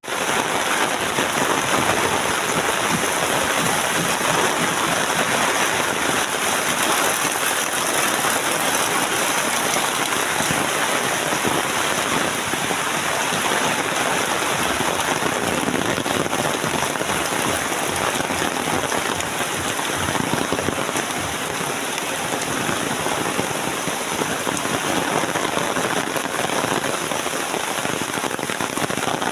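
Steady heavy rain, a dense, even hiss of falling drops.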